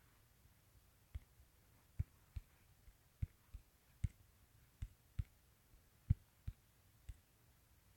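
Faint, irregular fingertip taps on a smartphone touchscreen while typing on the on-screen keyboard, about a dozen dull taps over six seconds.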